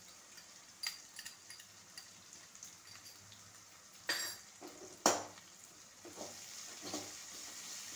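Sliced onions frying in a metal kadai with a faint sizzle while a spatula stirs them, scraping and knocking against the pan now and then, loudest about four and five seconds in. The onions are being sautéed soft with salt just mixed in.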